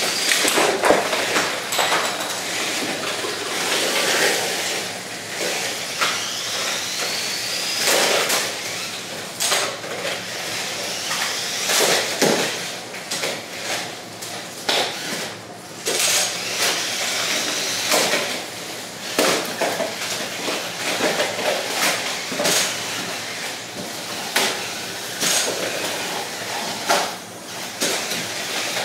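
Two Lego combat robots fighting: the electric motors of their drives and spinning weapons whine, rising and falling, while the spinners and Lego plastic parts clatter and knock against each other many times.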